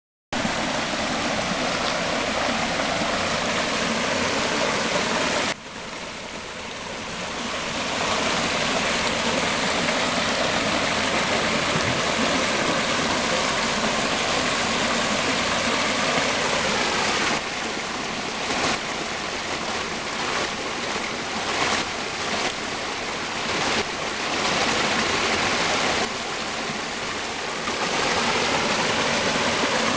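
Small stream spilling over a little waterfall: steady rushing and splashing water. It drops quieter suddenly about five seconds in, swells back over the next couple of seconds, and wavers in loudness through the second half.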